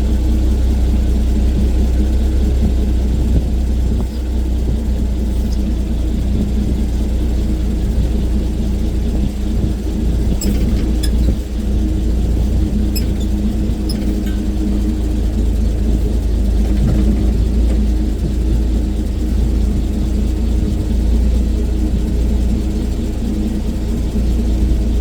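Bedford RL truck's six-cylinder petrol engine running steadily with a deep rumble, a few light clicks about halfway through.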